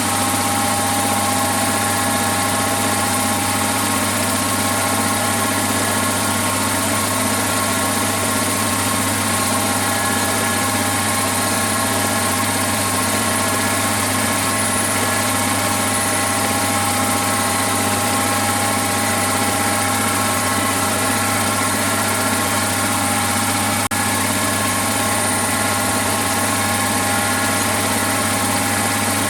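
A workshop machine's electric motor running steadily, with a constant hum and a higher whine that hold the same pitch throughout.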